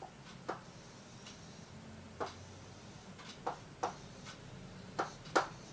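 Pen tip tapping and clicking on the glass of an interactive smart board while writing: a string of light, irregular taps over a faint room hiss.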